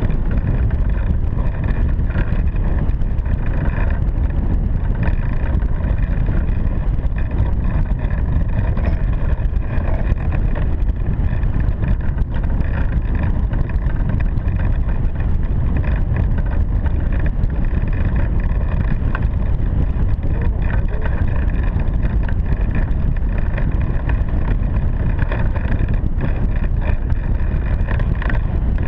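Steady, loud rush of wind buffeting the microphone of a camera mounted on a hang glider in flight.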